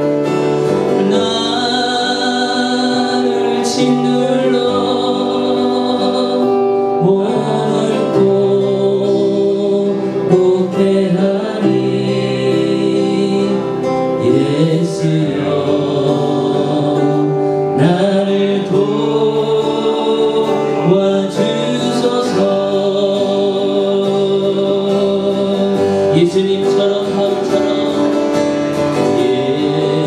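Praise song: a man singing while strumming an acoustic guitar.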